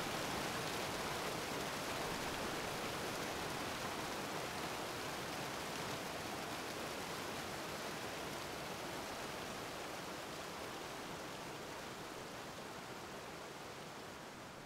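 A steady, even hiss of noise with no tone or rhythm, slowly fading out.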